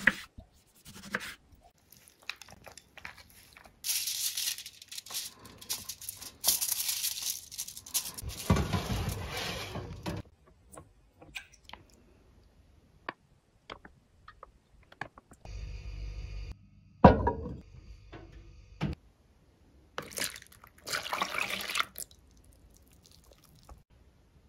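Kitchen preparation sounds in separate bursts with quiet gaps: packaging rustling and tearing, milk poured from a plastic bag into a glass, and one sharp knock of something set down about two-thirds of the way through.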